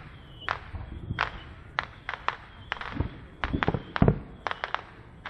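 Fireworks going off: a string of sharp, irregular cracks, with two deeper booms about three and four seconds in.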